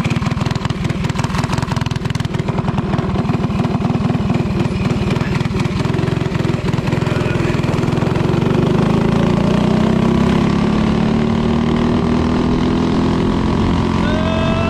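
Go-kart's small single-cylinder Briggs and Stratton engine running hard under load on the road, its note rough and pulsing at first, then louder and holding a steady high drone from about eight seconds in.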